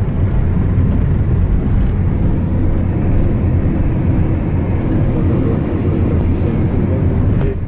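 Steady rumble of a car driving along a road, with road and wind noise heard from inside the cabin.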